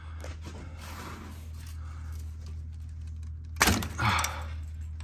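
A single sharp knock about three and a half seconds in, over a steady low hum.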